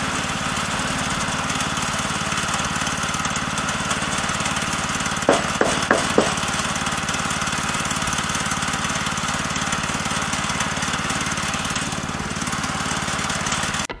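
Small gasoline engine of a Woodland Mills HM122 portable bandsaw mill running steadily. A few sharp knocks come about five to six seconds in.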